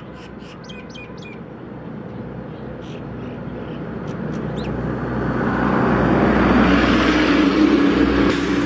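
A motorboat's outboard engine drones steadily and grows much louder over several seconds, peaking near the end. Small birds chirp during the first couple of seconds, and there is a brief knock near the end.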